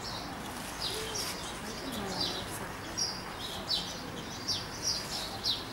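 A flock of small birds chirping: many short, falling chirps, several a second, overlapping, with faint voices in the background.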